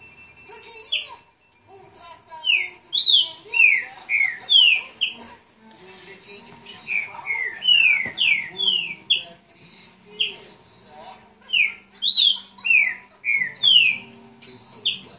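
Caged green-winged saltator (pixarro, trinca-ferro) singing loud, clear whistled phrases made of notes that slide downward, repeated in quick runs with short pauses between them.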